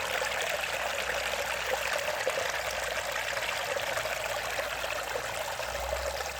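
Running water, splashing and trickling steadily without let-up.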